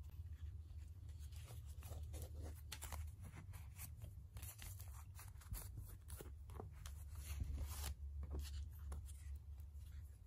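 Close hand-handling of bookbinding thread and paper pages: a run of short rustles and rubs, busiest in the middle, over a steady low hum.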